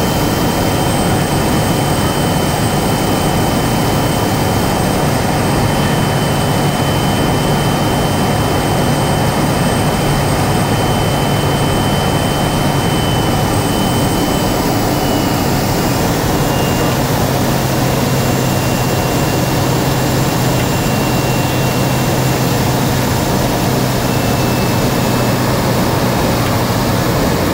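Kodiak 100's single turboprop engine and propeller running steadily, heard from inside the cabin, with a high turbine whine over the broad engine noise. The whine and the low drone both drop slightly in pitch about halfway through.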